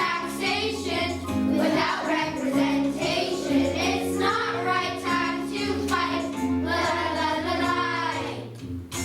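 Music: a song sung by children's voices over a steady instrumental backing. The singing breaks off briefly just before the end.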